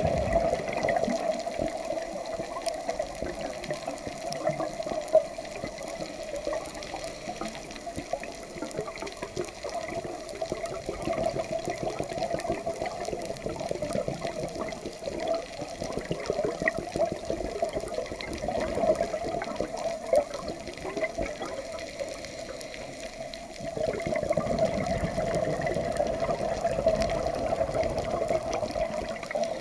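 Underwater noise picked up by a diving camera: a steady watery rushing and bubbling, louder from about 24 seconds in.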